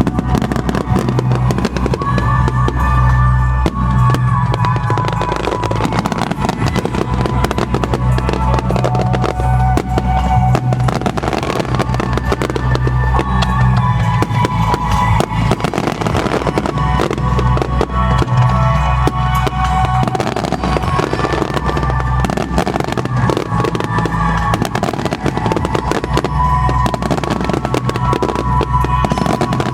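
Fireworks bursting and crackling in rapid, dense succession over loud music with a heavy bass line.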